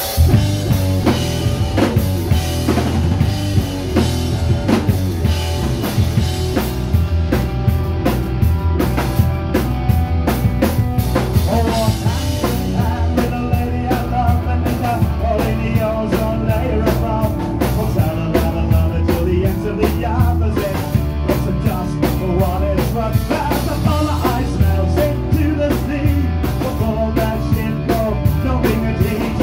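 Live rock band playing loudly: a drum kit beating out a driving rhythm on kick and snare under electric guitars and bass guitar. The song starts abruptly.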